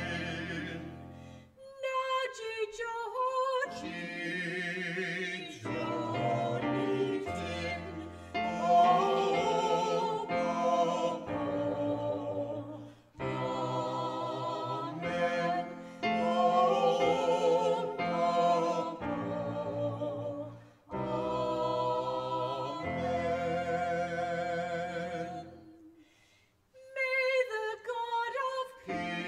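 Choir singing a slow piece in long held phrases with vibrato, the phrases separated by brief pauses.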